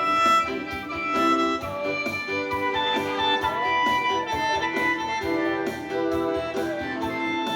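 Instrumental music: a melody of held notes over a steady beat.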